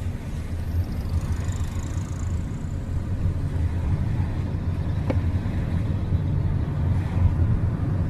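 Car driving along a city street, heard from inside the cabin: a steady low rumble of road and engine noise. A single brief click comes about five seconds in.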